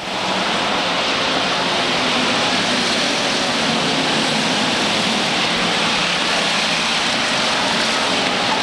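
A pack of Pure Stock race cars running at speed together, their engines blending into one steady, dense rush of noise.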